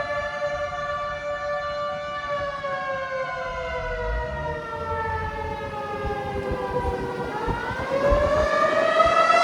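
Federal Signal outdoor tornado warning siren wailing on its attack signal. The pitch holds steady, slides slowly down for several seconds, then rises again near the end. A low vehicle rumble runs underneath.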